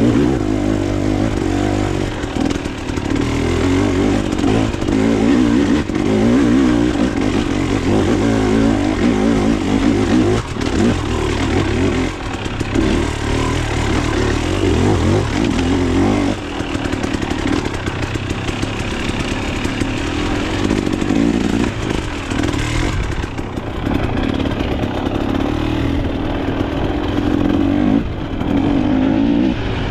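Off-road dirt bike engine being ridden hard, its pitch rising and falling as the throttle is opened and closed, with some rattling.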